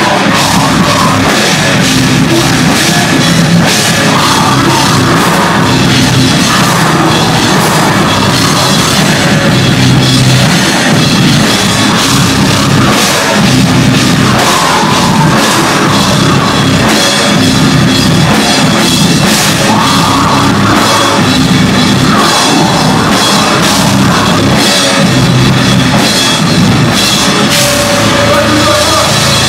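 Live deathcore band playing loud heavy metal: electric guitar and a full drum kit with cymbals, steady in level.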